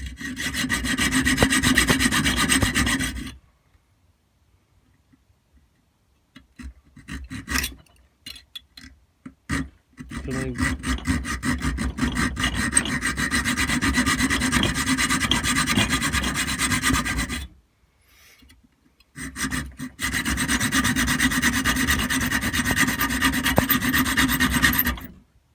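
Hacksaw cutting a notch into the end of a small metal pipe clamped in a vise, in three bouts of quick, steady back-and-forth strokes, with a few short knocks in the pauses between bouts.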